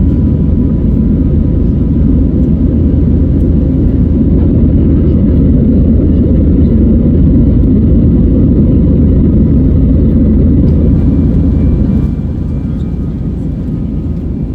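Loud, steady rumble of an Airbus A320 heard from inside the cabin during its takeoff, jet engines and airflow running together. About twelve seconds in, the level drops noticeably.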